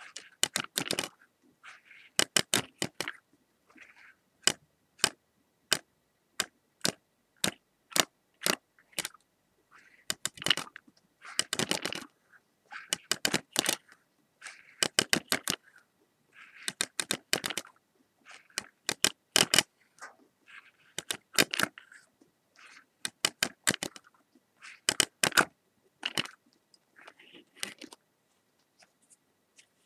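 A series of sharp clicks and taps, some single and some in quick clusters of a few strokes, with short pauses between.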